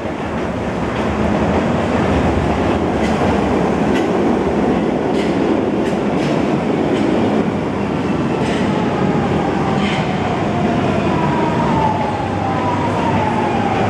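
Lisbon Metro train running along the station platform: a loud, steady rumble of wheels and running gear with scattered rail clicks. A thin whine falls in pitch over the last few seconds.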